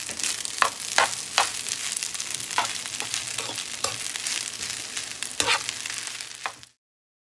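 Egg fried rice sizzling in a hot pan as a spatula stirs and turns it, with a steady hiss and repeated sharp scrapes of the spatula against the pan. The sound cuts off suddenly near the end.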